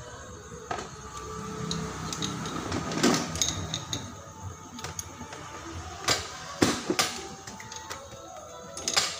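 Open-end spanner working a muffler mounting bolt, giving scattered sharp metallic clicks and clinks: one about three seconds in, a cluster around six to seven seconds, and another near the end.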